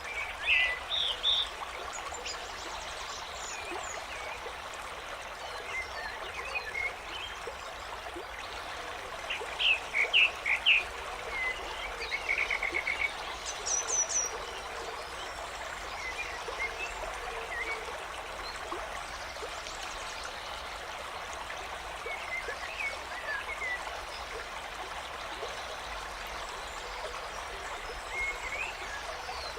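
Forest nature soundscape: a steady babbling stream with songbirds chirping over it, the calls thickest and loudest around ten seconds in, including a short rapid trill.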